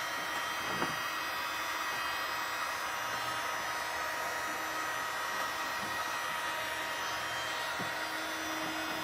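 Electric heat gun running steadily, blowing hot air onto a flattened PVC pipe rib to soften it for bending into the hull.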